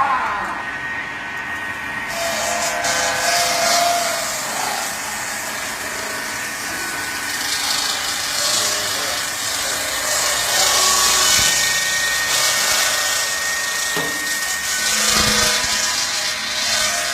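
Ice block cutting machine's circular saw blades, a 600 mm splitting blade and eleven 300 mm cutting blades, spinning and cutting through block ice. The result is a loud, hissing grind that swells and eases over a few steady whining tones.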